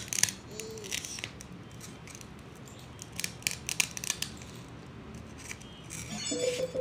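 Clicks and scraping of a plastic toy knife cutting into a plastic toy fruit on a plastic cutting board: a few sharp clicks at the start and a burst of them around the middle. A child's voice starts just before the end.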